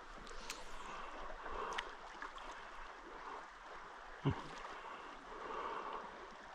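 Fast creek water running over a riffle, a steady rushing that swells and eases, with one short low thump about four seconds in.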